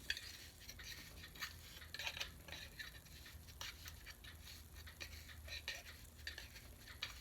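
Measuring scoop spooning and packing ground espresso coffee into an espresso machine's filter basket: faint, irregular scrapes and small taps.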